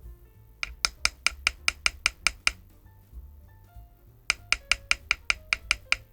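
Keystrokes on a Weikav Stars80 aluminium, gasket-mounted mechanical keyboard, in two quick even runs of about ten strokes each at about five a second, over soft background music.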